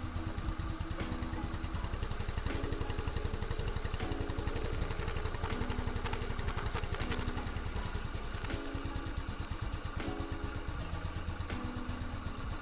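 Yamaha Ray ZR scooter's single-cylinder four-stroke engine idling steadily while its carburettor idle-speed screw is being set with a screwdriver, after warming up.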